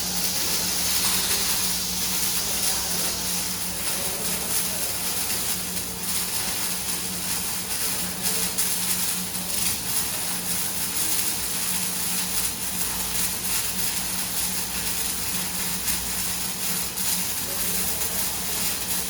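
Semi-automatic arc welding: a steady crackling hiss from the welding arc, with a low steady hum underneath.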